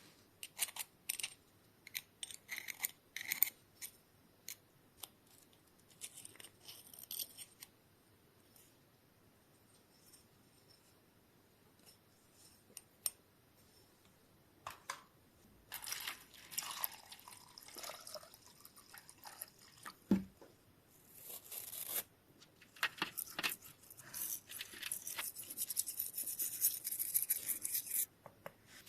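Small bicycle freehub parts being handled and cleaned: scattered clicks and taps, then several stretches of a brush scrubbing with a hissing scratch, the longest near the end.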